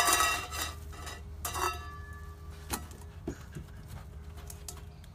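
A dropped bowl ringing out after hitting the floor and fading over the first half second. It clangs and rings again about one and a half seconds in as it settles, followed by a couple of light knocks.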